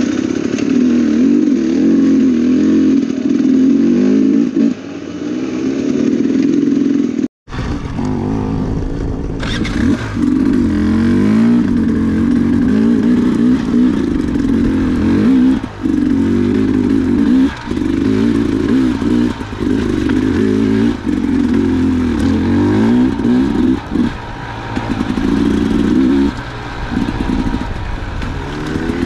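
Dirt bike engine running under load, its pitch rising and falling again and again as the throttle is worked. The sound drops out for an instant about seven seconds in.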